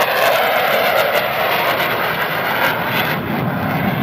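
F-16 fighter jet making a low pass, its jet engine loud and steady.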